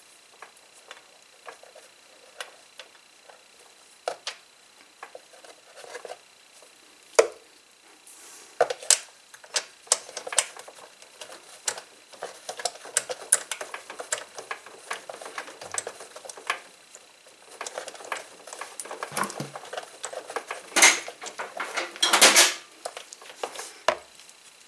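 Socket wrench clicking and metal tools clinking as a spark plug is threaded into a 150cc four-stroke go-kart engine's aluminium head and tightened. Scattered single clicks at first, then quick runs of ratcheting from about a third of the way in, loudest near the end.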